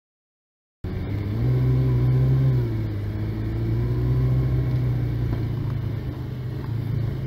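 A vehicle engine heard from inside the cab, driving on a rough forest dirt track: a low, steady drone that starts suddenly about a second in. It rises slightly in pitch for a moment, then settles and runs on until it cuts off abruptly.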